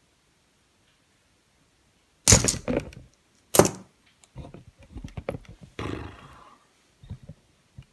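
Two loud knocks, then a run of small clicks, a short scrape and a few more clicks: the parts of a Kasp padlock being handled during disassembly.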